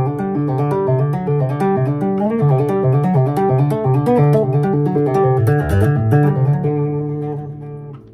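Electric bass guitar played with two-hand tapping, the tone set bright with the treble turned up: a quick run of ringing notes with a deep low note late on, ending in held notes that fade out.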